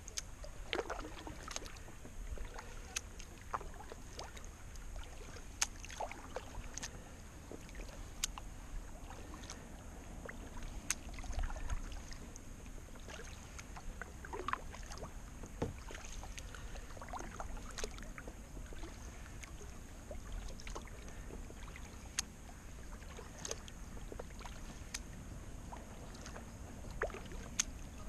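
Kayak paddle strokes on calm water: irregular small splashes, drips and light knocks as the blades dip in and out, over a low, steady rumble.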